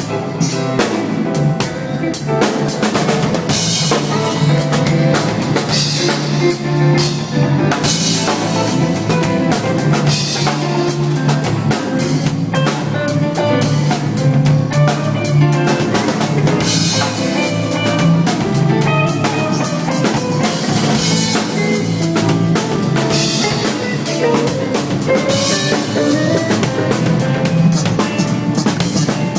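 Live band jam led by a drum kit: busy grooves on kick, snare with rimshots, and cymbals, over a steady bass line and other pitched instruments playing melodic lines.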